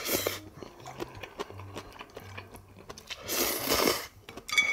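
Noodles of tonkotsu ramen slurped through the lips: one slurp ends just after the start and another comes about three and a half seconds in, with soft chewing clicks between. A brief ringing tone sounds near the end.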